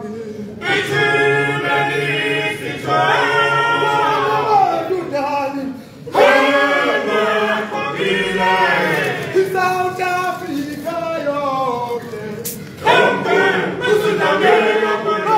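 Male choir singing a cappella, in phrases with short breaks about six and thirteen seconds in.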